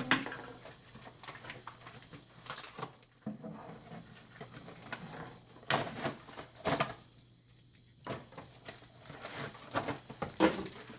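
Plastic toy packaging crinkling and tearing as it is opened by hand, with scattered small clicks and taps at uneven moments.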